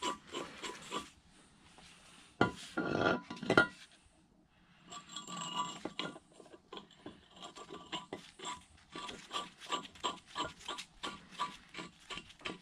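Steel parts clinking and clicking as the ram clamp blocks and locking studs are fitted and turned into a Bridgeport mill's turret. There are a few louder knocks about three seconds in, then a run of quick small clicks through the second half.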